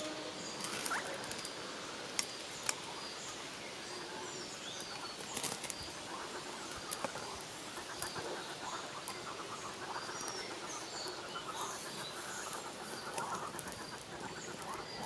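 Dry grass tinder rustling and crackling as it is worked by hand and catches fire from ferro-rod sparks, with small birds chirping repeatedly in the background. Two sharp clicks come a little after two seconds in.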